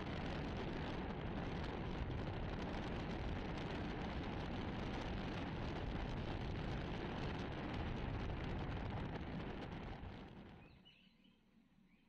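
Steady road and wind noise of a car in motion, heard from inside, fading out about ten and a half seconds in. Faint bird chirps follow near the end.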